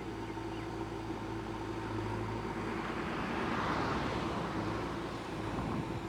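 JCB 3DX backhoe loader's diesel engine running steadily with a low hum. The noise swells louder for a second or two around the middle and then eases back.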